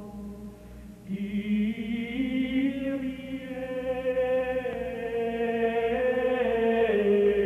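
Choral chant: voices singing long held notes that move slowly from pitch to pitch, with a fuller phrase coming in about a second in.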